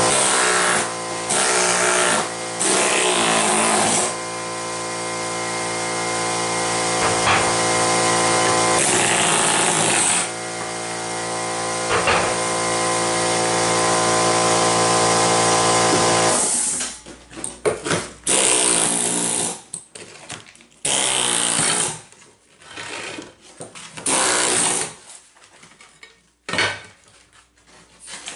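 8-gallon 2 HP oil-lube air compressor running with a steady machine drone, cutting off about two-thirds of the way through, likely as the tank reaches pressure. After that a pneumatic air hammer chisels at porcelain floor tile and thinset in short bursts with pauses between them.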